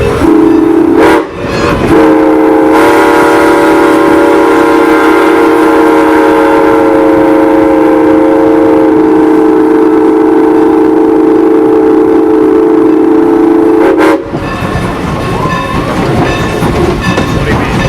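Steam locomotive's whistle sounding several notes together: a couple of short blasts, then one long blast of about eleven seconds that cuts off suddenly. After it the train rumbles along the rails.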